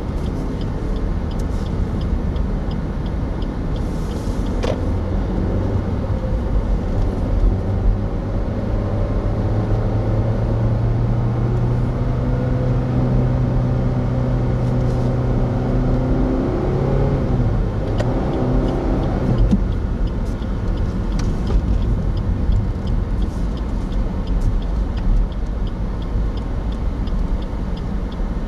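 A car being driven: steady engine and tyre rumble on the road. The engine note climbs and holds for several seconds, then falls away about two-thirds of the way through as the car slows.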